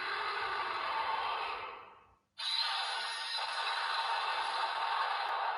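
An Ultraman toy device's small speaker playing a scanned Dimension Card's sound effect for the villain Darrgon. It is a rough, breath-like hissing effect in two long blasts, with a brief break about two seconds in.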